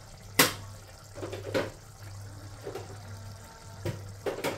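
Pots simmering and bubbling on a stovetop over a steady low hum, with a few sharp clicks and clatters of kitchen utensils and spice containers being handled, the loudest about half a second in.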